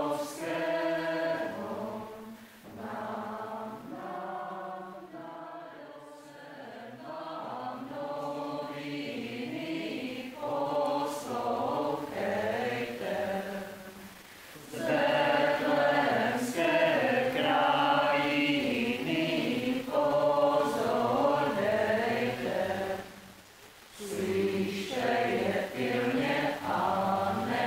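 Small mixed group of men's and women's voices singing a Christmas carol together, unaccompanied. The singing is softer at first and grows louder about halfway through, with a brief pause between phrases near the end before it picks up again.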